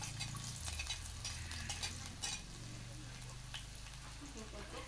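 Minced garlic sizzling in hot cooking oil in a frying pan, with sharp clicks and scrapes of a spatula against the plate and pan over the first two seconds or so, then a steadier sizzle.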